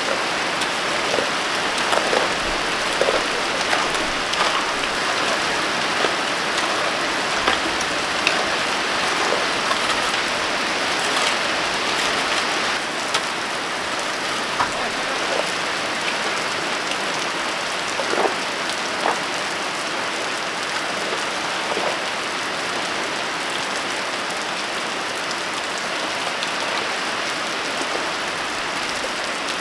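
Heavy rain falling steadily, with scattered louder drops striking close by.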